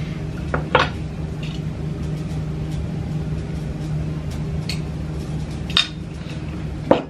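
Metal spoon clinking against a ceramic bowl while beaten egg is poured from it onto stretched dough: a few sharp clinks, the loudest near the start and the end, over a steady low hum.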